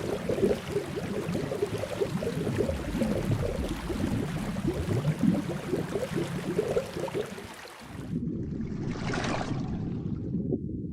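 Underwater ambience: a dense bubbling and gurgling. About eight seconds in it cuts to a low steady rumble with a swelling, hissing wash.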